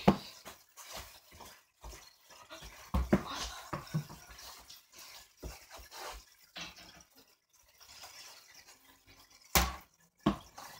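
Irregular knocks and thuds of a ball being thrown at a basketball hoop. The loudest come at the start, a cluster about three seconds in, and two strong ones near the end, under a second apart.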